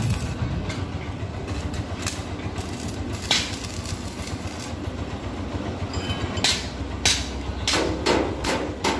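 Hammer knocking on the metal of a tricycle sidecar: a couple of spaced strikes, then a quicker run of blows in the last few seconds. Under it runs the steady low rumble of an idling engine.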